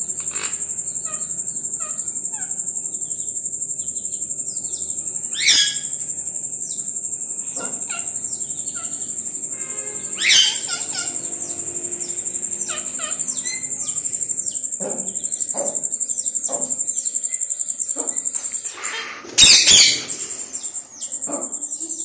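Rose-ringed parakeets chirping with short calls, with two loud downward-sliding squawks about five and ten seconds in and a louder harsh burst near the end. A steady high, fast-pulsing trill sits behind them.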